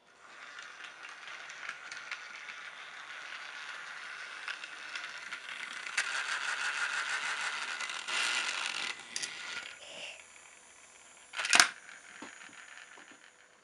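Battery-powered Chuggington toy train running along plastic track, its small motor and wheels giving a steady fast rattle that grows louder about six seconds in and dies away around nine seconds. Near the end comes a single sharp plastic knock as the train drops off the raised track onto the table.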